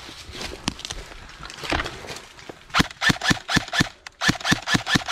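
Airsoft rifle firing two rapid full-auto bursts, about eight shots a second, each about a second long with a short gap between, starting nearly three seconds in. Before them, a few faint scattered ticks and rustles.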